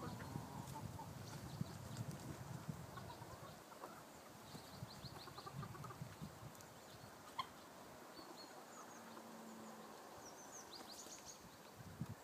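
Backyard chickens clucking quietly while foraging, with short high chirps scattered through, and low rustling in the first few seconds.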